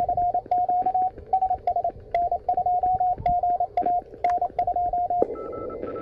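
Morse code (CW) signal heard through a CFT1 transceiver's speaker: a single steady tone keyed in dits and dahs, each element starting with a faint click. A little past five seconds the audio switches to another receiver: band hiss with a weaker, higher-pitched CW tone, about 600 Hz above the first.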